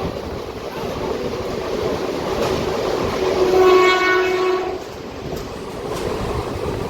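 Passenger train running at speed with a steady rumble of wheels on the track, and one horn blast of about a second and a half from the WAP7 electric locomotive hauling it, a little over three seconds in.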